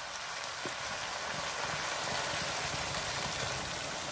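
Crayfish in a spicy sauce with beer just poured in, bubbling and fizzing in a wok: a steady hiss.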